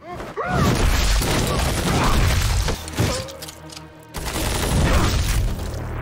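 Action-scene sound effects of heavy impacts and crashes, mixed with music.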